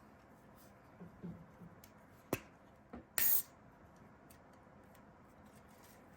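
Light handling of cosmetics packaging: a couple of sharp clicks and a brief rustling hiss.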